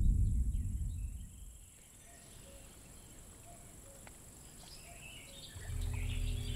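A low rumbling drone fades away over the first second or two, leaving quiet outdoor ambience with faint, scattered birdsong. About five and a half seconds in, a low sustained drone of held notes from the film's score swells in under more bird chirps.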